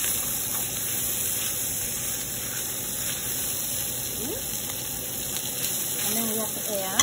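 Pulled pork and green pepper strips sizzling in a frying pan, a steady frying hiss.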